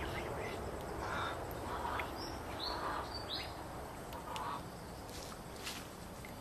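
Ducks quacking at intervals, each call short, over a steady outdoor hiss. A few short, high, falling bird chirps come in the middle.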